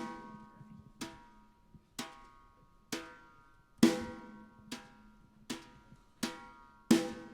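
Single drum strokes on a jazz drum kit, each ringing out with a pitched tone. They start about a second apart and gradually speed up, like a train getting under way.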